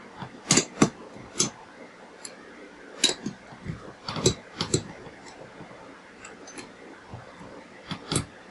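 Irregular sharp metallic clicks and clinks, a few at a time, from a half-inch drive socket wrench working on an L-head mower engine's cylinder head bolts as they are cracked loose one after another.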